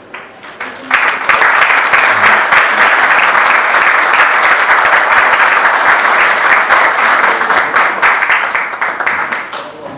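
Audience applauding: a few scattered claps, then the applause swells about a second in, holds steady, and fades away near the end.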